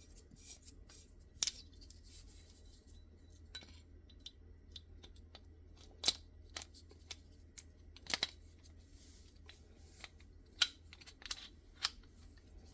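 Scattered small metal clicks and taps from handling a Glock slide and rear night sight set in a sight pusher tool, a few seconds apart, with a quick double click about eight seconds in.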